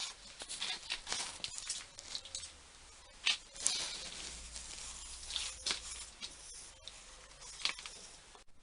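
Faint, irregular taps, clicks and scraping of things being handled and shifted on a workbench, with a few sharper knocks about three and a half seconds in.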